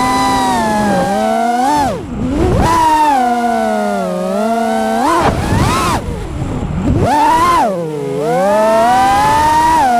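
FPV freestyle quadcopter's brushless motors and propellers whining as the throttle is punched and chopped. The pitch swings down and back up sharply three times, near 2, 6 and 8 seconds in, with a rush of air in the low dips.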